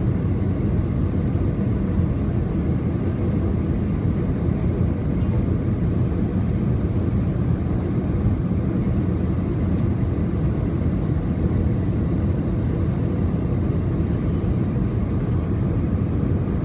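Steady engine and airflow noise inside the cabin of an Airbus A320 airliner on final approach, an even low rumble that does not change.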